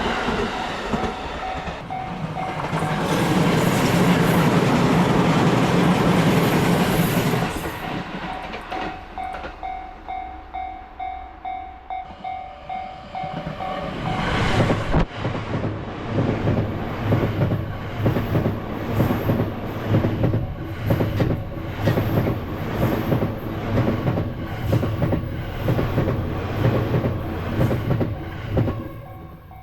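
Trains passing over a level crossing, with the crossing's warning bell ringing in a fast, steady pulse. One train rumbles by in the first seconds. From about halfway, another train's wheels clatter over the rail joints in an even clickety-clack rhythm.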